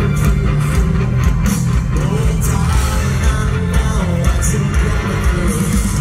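Live rock band playing loudly: electric guitars, bass and a drum kit, with singing over them.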